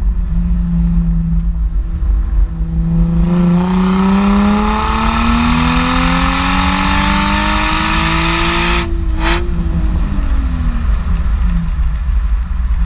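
Nissan 350Z's 3.5-litre V6 heard at the tailpipe through a muffler-deleted exhaust while driving. The engine holds steady revs for about three seconds, then the revs climb under acceleration for several seconds. After a short break about nine seconds in, the revs fall away. A low wind rumble on the microphone runs underneath.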